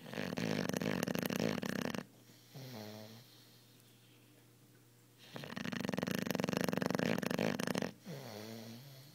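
Cane Corso puppy snoring loudly in its sleep: two long, rattling in-breaths, each followed by a shorter, quieter whistling out-breath.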